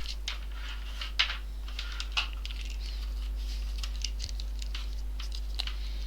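Scattered light clicks and taps of multimeter probes touching parts on a laptop motherboard while diode-mode readings are taken, over a steady low hum.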